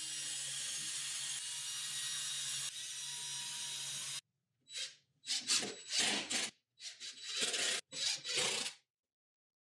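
A steady hiss for the first four seconds, which cuts off abruptly. Then a cordless drill bites into plywood in about seven short rasping bursts, boring and countersinking screw holes.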